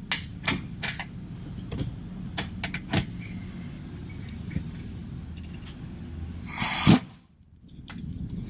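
Scattered clicks and knocks of tools and suspension hardware over a low steady hum, then about six and a half seconds in a brief half-second burst of an impact gun lightly snugging the camber arm bolt, which cuts off sharply.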